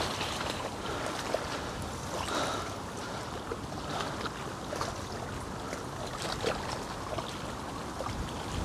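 Wind blowing across a choppy lake and small waves lapping at the reedy bank, a steady rushing wash of noise.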